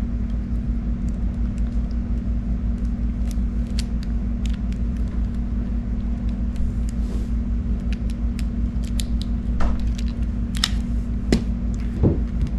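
Scattered small clicks and snips of a cable stripper working on Cat 6 Ethernet cable as its outer jacket is scored and stripped, over a steady low hum.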